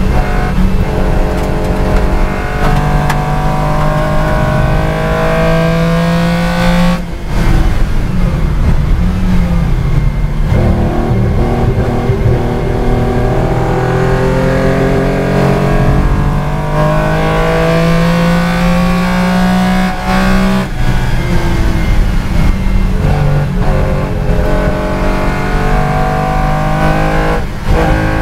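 Porsche 914/6 GT race car's air-cooled flat-six engine heard from the cockpit, pulling up through the revs under acceleration several times, with short breaks at gear changes.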